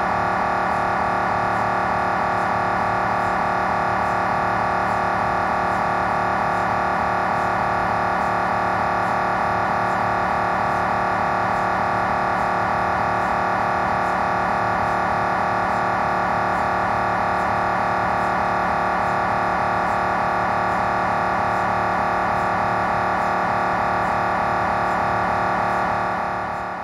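GE Signa Excite 1.5T MRI scanner running a coronal T2 gradient echo (GRE) sequence: its gradient coils make a loud, steady, fast-pulsing buzzing tone. The sound fades in at the start and fades out near the end.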